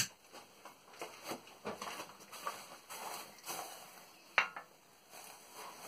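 A ceramic mug set down on a metal lathe bed, one sharp clink about four and a half seconds in, after a run of faint, irregular rustling and tapping.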